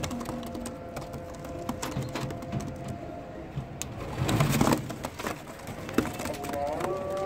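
Teddy pigeons cooing in a wire-mesh loft, with a short, loud rustling burst about four seconds in and a sharp click near the end.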